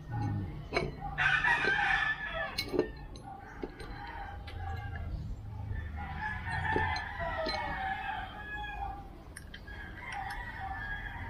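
A rooster crowing twice: a loud crow about a second in and a fainter, falling one around six seconds in. Scattered light clicks and taps of metal scooter parts being handled.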